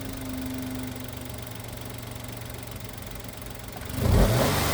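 Hyundai-Kia G3LA 1.0 three-cylinder engine idling steadily with a new timing chain fitted, the chain rattle gone. Near the end it is revved briefly, the pitch sweeping up and then falling back.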